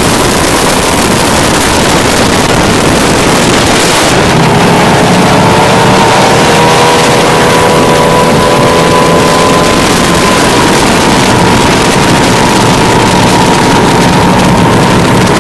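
Wind and water rushing past a moving boat for the first few seconds. Then a high-performance speedboat's engine runs at speed in a steady drone, falling slightly in pitch about ten seconds in as the boat passes.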